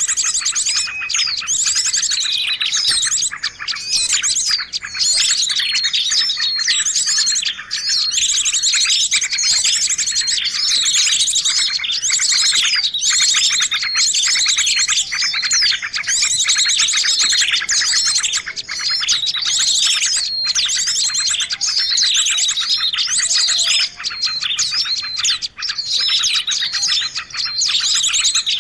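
Bird-lure recording of many small songbirds: a dense, continuous chorus of overlapping chirps and sweeping calls with a rapid high trill running through it. A faint lower call comes in during the second half.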